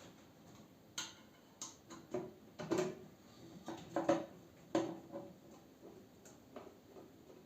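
A series of small clicks, taps and knocks from parts and tools being handled during a microwave oven repair: a cluster of sharp clicks in the first half, loudest about three and four seconds in, then a few fainter ticks.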